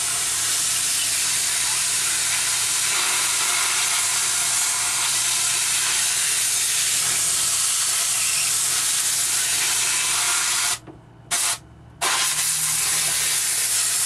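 Compressed air hissing steadily from an air-compressor blow gun, blasting through a window air conditioner's soaked front coil to push out dirt packed between the fins. About 11 seconds in, the air cuts off twice briefly and then resumes.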